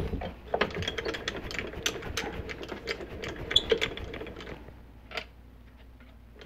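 Mini milling machine's table handwheel being cranked: the leadscrew and handwheel make a rapid clatter of small clicks, which stops about four and a half seconds in. One sharper click comes about a second later.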